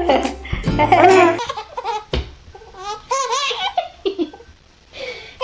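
Babies laughing in bouts of high-pitched giggles and belly laughs, broken by short pauses.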